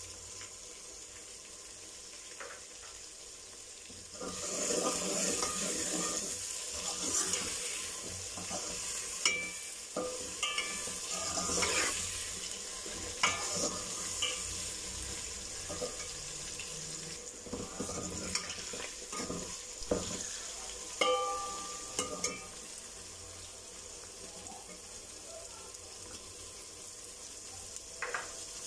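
Potatoes and peas frying in oil in an aluminium pot, the sizzling jumping up sharply about four seconds in. A metal slotted spoon stirs, scraping and clinking against the pot, for most of the rest.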